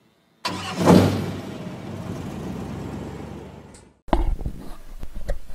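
Intro sound effect: a sudden rushing swell with a steady low hum under it, peaking about a second in and fading away over some three seconds. It cuts off, then a few short knocks and clicks follow.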